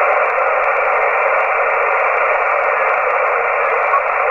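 Steady static hiss from a CB radio's speaker while receiving on 27.565 MHz upper sideband, with no readable signal above the band noise.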